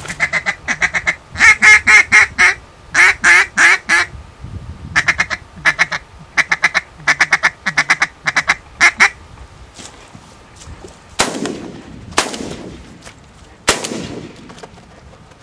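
Reed duck call blown in runs of loud quacks, some quick and clipped and some drawn out, for about nine seconds. Near the end come three sharp bangs, each with a trailing echo.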